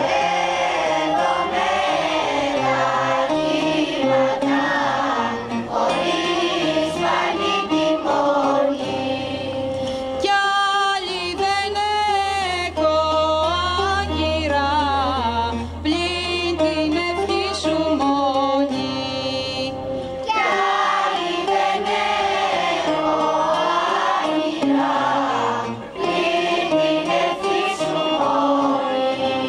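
Mixed choir singing a Greek folk song. In the middle a single line carries the melody over a held low note, then the full choir comes back in.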